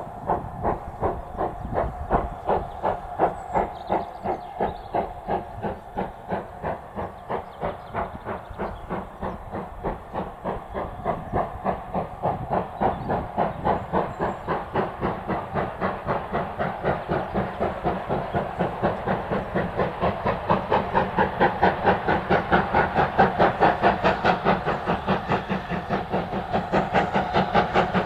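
GWR Saint-class 4-6-0 No. 2999 'Lady of Legend', a two-cylinder steam locomotive, working hard with a steady rhythm of exhaust beats, about two to three a second. The beats grow louder and slightly quicker as the train approaches.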